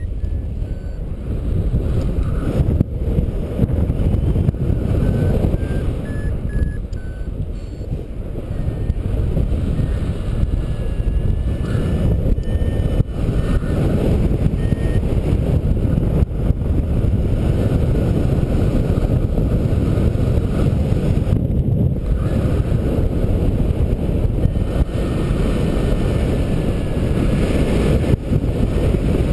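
Steady wind rushing over the microphone of a flying paraglider pilot's camera, with faint high electronic beeps from a flight variometer, short notes stepping up in pitch about five seconds in and longer tones later on.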